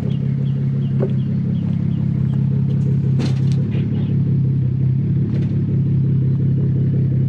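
Ford Taurus SHO's 3.5-litre twin-turbo EcoBoost V6 idling through a custom rear X-pipe exhaust, heard at the tailpipes: a steady low rumble with no revving.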